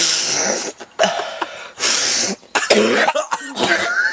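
A man coughing and hawking in several harsh bursts, the first about a second long, as he strains to bring a worm that he sucked up his nose out through his mouth.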